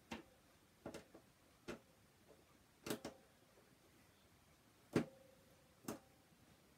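Sharp, irregular clicks, about seven in all, from a small screwdriver working the screw of a plastic toy's battery compartment cover. The loudest, about five seconds in, has a short ring after it.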